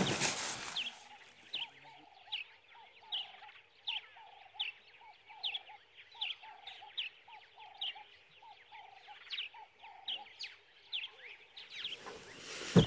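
Short chirping animal calls repeated steadily, a little more than once a second, each a lower note paired with a quick falling higher one.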